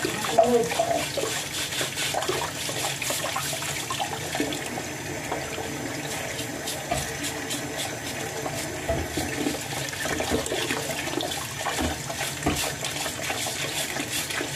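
Tap water running into a sink while live crabs are scrubbed with a brush, with many small clicks and knocks of shell and brush throughout.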